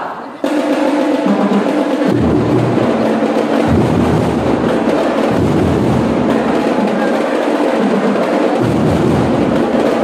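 A school drum and lyre corps playing: drums beating under bell lyres. The band comes in abruptly about half a second in, with its low notes changing every second or two.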